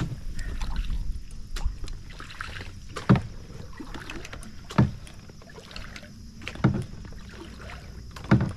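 Double-bladed kayak paddle stroking through river water: a dull knock with each stroke, five in all about every two seconds, with water splashing between them.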